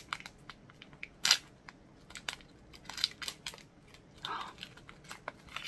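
A small snack package being handled and opened: a run of sharp, irregular clicks and crackles, with one louder snap a little over a second in.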